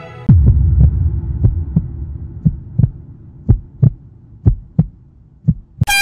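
Heartbeat sound effect: low double thuds, at first quick over a deep rumble, slowing to about one lub-dub a second. Just before the end a loud steady tone cuts in.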